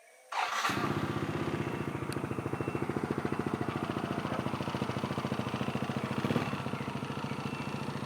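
Small motorcycle engine starting up about half a second in, then running steadily with a fast, even pulse.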